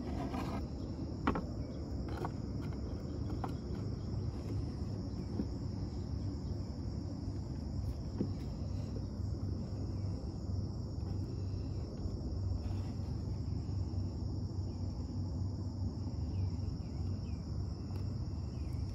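Steady high-pitched chorus of insects, over a low steady rumble, with a few faint clicks as a watch box is handled and opened.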